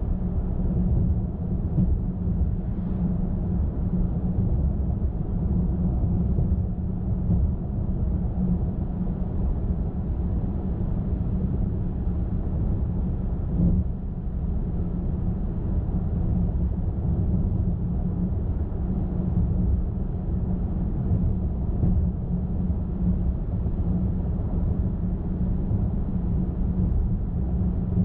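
A car cruising at highway speed makes a steady low drone of tyre roar and engine hum, with one short knock about halfway through.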